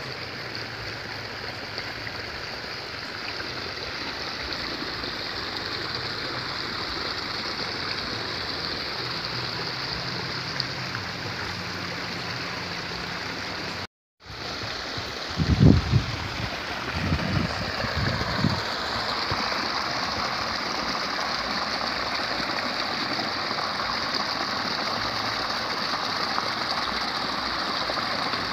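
Shallow water babbling steadily over stones in a narrow irrigation ditch between rice paddies. The sound drops out for a moment about halfway, and a few low thumps follow shortly after.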